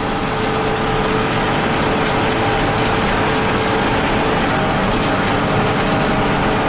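New Holland 8160 tractor running steadily under load while pulling and powering a New Holland BR780 round baler, heard from inside the cab, with a steady hum over the dense mechanical noise of the tractor and baler.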